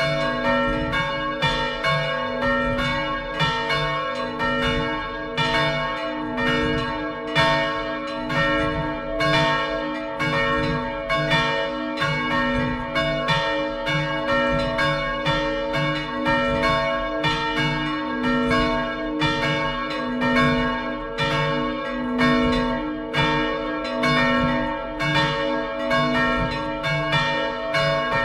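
Full peal of three bronze church bells swinging and ringing together. There is a 370 kg bell tuned b¹ and a 195 kg bell tuned c², both cast by the Fischer brothers in Trnava, and a small 37 kg bell tuned slightly sharp of b². Their strokes overlap steadily, several a second, over a continuous ringing hum.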